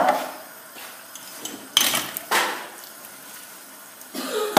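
Dishes and utensils clattering as they are handled in a kitchen sink: a knock at the start, two more around halfway, and a cluster of knocks near the end.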